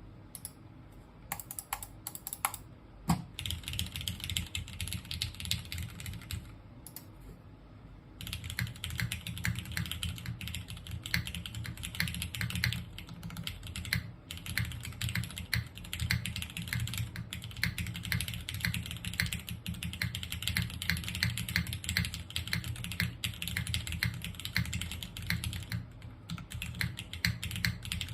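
Typing on a TGR Jane V2 CE mechanical keyboard with linear Cherry MX Black switches on a polycarbonate plate, with JTK Sakura keycaps. A few separate key presses lead into a burst of fast typing, a short pause, then steady fast keystrokes with only brief breaks.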